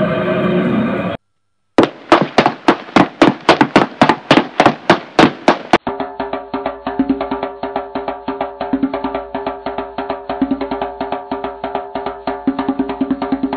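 Cartoon soundtrack. A loud cry cuts off about a second in, and after a short gap comes a steady knocking, about four knocks a second, for some four seconds. Then fast-paced music with rapid percussion over sustained tones takes over.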